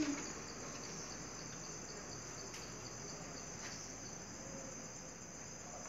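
Insects chirring steadily in a faint, high-pitched drone, with two faint clicks near the middle.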